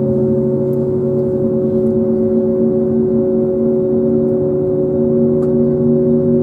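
Steady hum made of several constant tones, heard inside the cabin of an Airbus A321neo airliner whose systems are running.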